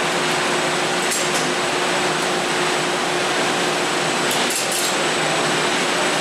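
Steady mechanical running noise of a gondola lift station's machinery, with a faint steady hum, and a few light clicks about a second in and again around four and a half seconds.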